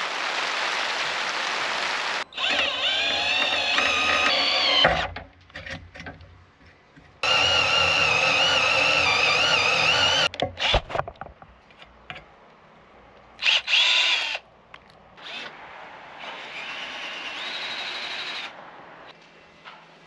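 A power drill running in several separate bursts with short pauses between, its whine wavering in pitch as the load changes. A steady hiss comes first.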